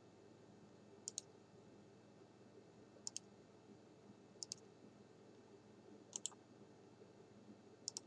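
Computer mouse button clicking in quick pairs: five double-clicks a second or two apart, against near silence.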